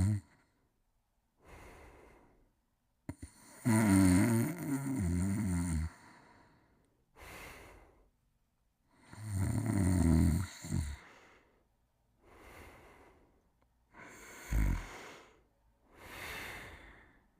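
Snoring in slow, uneven breaths. Two loud, buzzing snores come about 4 and 10 seconds in, with softer, breathy breaths between them.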